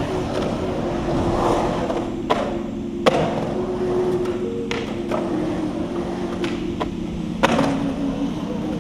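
Skateboard wheels rolling on concrete, with sharp board cracks of pops and landings about two and a half seconds, three seconds and seven and a half seconds in, over background music.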